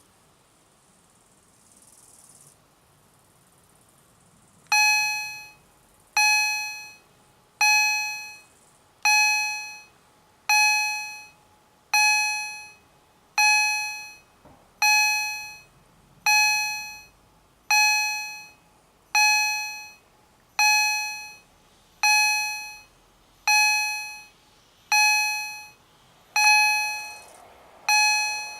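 Electronic level-crossing bell (EHL-S10 acoustic signal generator in gong mode) starts sounding about five seconds in: a single struck-gong tone repeated about every one and a half seconds, each stroke dying away quickly. It is the crossing's warning that a rail vehicle is approaching.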